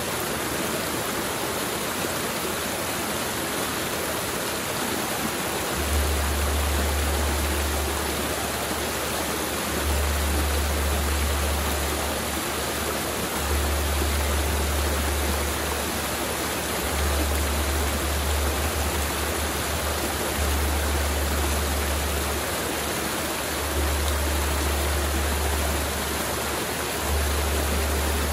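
Mountain river flowing steadily, a continuous rushing of water. From about six seconds in, a deep low rumble comes and goes in pulses every three to four seconds.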